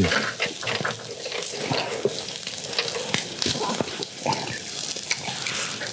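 Skewered hearts sizzling over charcoal on a grill grate: a steady hiss with scattered crackles and pops.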